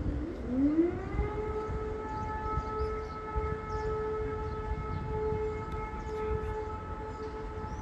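Air raid siren winding up in pitch about half a second in, then holding a steady wail with several overtones.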